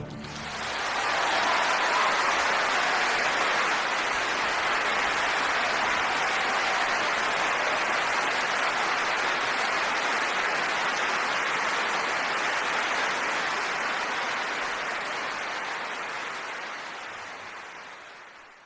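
Steady applause from a crowd, fading out over the last few seconds.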